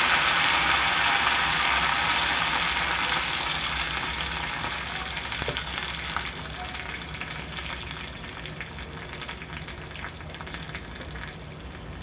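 Curry leaves and green chillies sizzling in hot oil in a small tadka pan, a loud hiss at first that dies down steadily, with scattered small crackles as it fades. The burner is switched off, so the oil is cooling.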